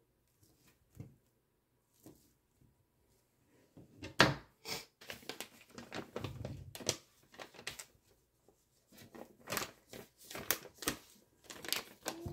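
A plastic sausage packet crinkling and rustling as it is opened and handled, in a run of sharp crackles from about four seconds in. Before that, a few faint taps of a knife on a plastic cutting board.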